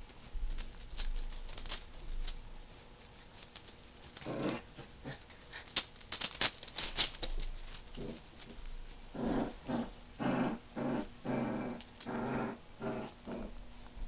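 Five-week-old puppies play-fighting: a quick run of about six short puppy growls and yaps about nine seconds in, with an earlier single one, over sharp clicks and scuffling of paws and claws.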